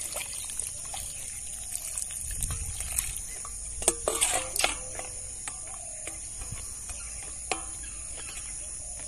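Water poured from a metal bowl onto potting soil in a woven plastic grow bag, soaking the mix: soft splashing and trickling, with a few louder splashes around the middle.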